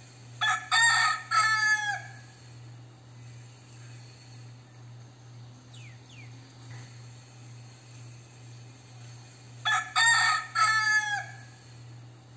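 Crossbred gamecock rooster crowing twice, about nine seconds apart. Each crow is a couple of short notes and then a longer final note that falls away at the end.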